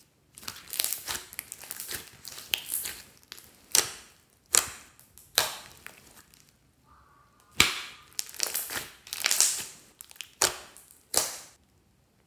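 A large batch of fluffy slime being squeezed and pulled apart by hand, giving irregular sticky crackling and several sharp pops. There is a short lull about halfway through, and it falls quiet near the end.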